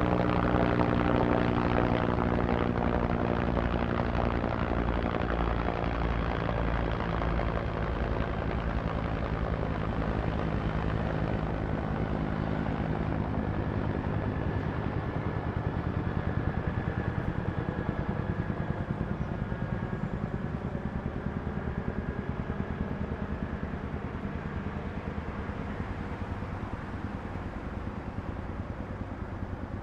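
Distant helicopter, its rotor chop and engine hum steady, slowly fading away.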